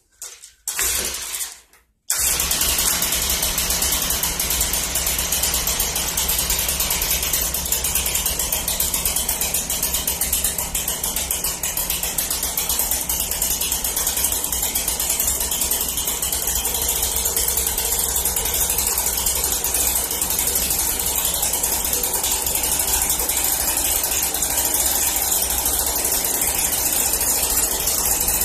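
Stihl BG 65 leaf blower's two-stroke engine, freshly fitted with a new carburetor, running steadily at idle during carburetor idle-speed and low-speed mixture adjustment. It comes in suddenly about two seconds in, after a few brief noises.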